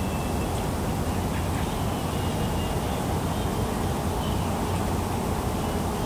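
Steady low outdoor rumble, with a few faint, thin, high bird calls about two and four seconds in.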